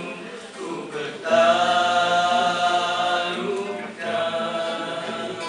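Group of male voices singing a nasheed together, with long held notes. One sustained phrase swells in about a second in, fades near four seconds, and the next phrase starts right after.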